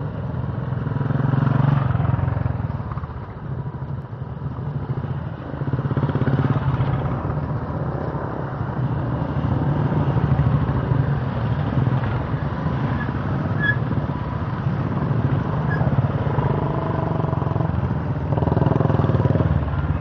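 Several motorcycle engines running as the bikes ride one at a time through shallow river water. The engine sound swells as each bike comes close and fades as it moves on.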